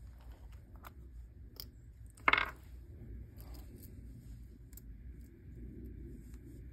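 Resin dice being popped out of a flexible silicone mold, with a few light clicks and one hard resin die clattering onto the tabletop about two seconds in.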